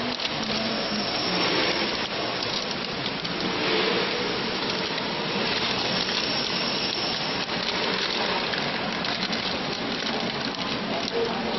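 Foil-laminate packaging film crinkling and rustling as it is handled and threaded into the machine, a dense, steady crackle.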